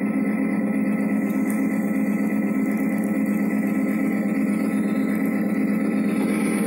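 Steady diesel engine drone from model diesel locomotives rolling past, one low, even hum without change in pitch.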